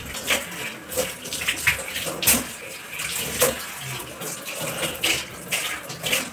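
Kitchen tap running into a stainless steel sink while the basin is scrubbed and rinsed by hand. Water splashes, with frequent sharp knocks and clinks against the steel.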